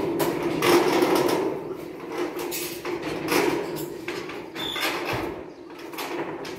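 Corrugated metal roofing sheet flexing and rattling as it is hauled up, with irregular knocks and scrapes.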